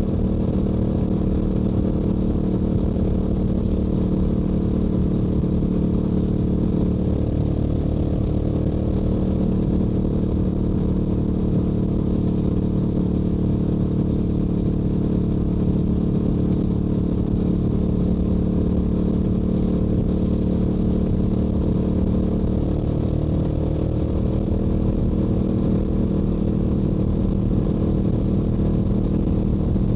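Yamaha YZF-R7's stock-exhaust 689 cc parallel-twin running at a steady highway cruise, its pitch holding almost constant, with wind rush.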